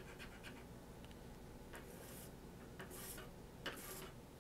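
A few short, faint scrapes on a paper scratch-off lottery ticket, coming one by one in the second half, as more of the coating is scratched off.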